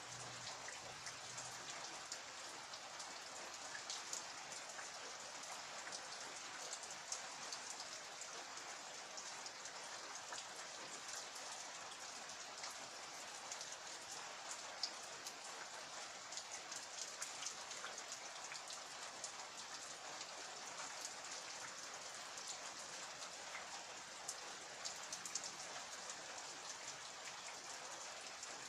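Rain falling steadily: an even hiss with many separate drops tapping sharply on surfaces.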